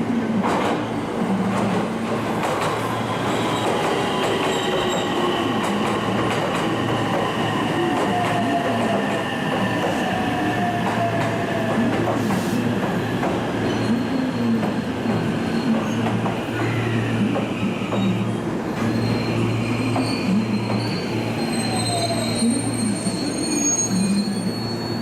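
Electric train moving along the platform track with squealing wheels over a steady motor hum, with slowly falling whining tones; thin high wheel squeal comes in near the end.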